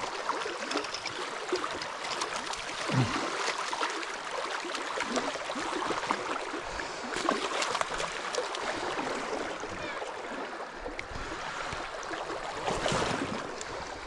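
Shallow river water running and rippling over weed beds and stones, with small splashes from a hooked rainbow trout being played in close, and a louder splash near the end.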